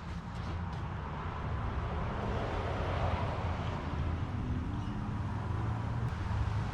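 Water running into a car's cooling system as it is filled, getting a little louder about two seconds in.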